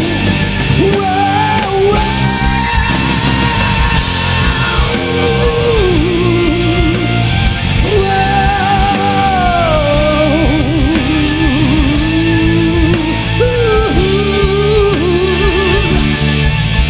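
Rock band playing live, with electric guitar, bass and drums, under long, wavering melody lines bent with vibrato, with no sung words.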